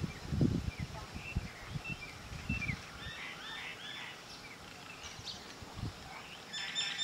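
Outdoor ambience with small birds chirping: short repeated chirps and arched call notes through the middle, and a louder call near the end. Low thumps in the first second or so.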